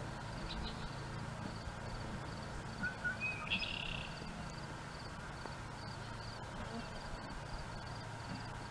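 Outdoor woodland ambience: a steady background hiss with a faint high chirp repeating about twice a second, and one brief higher call about three and a half seconds in.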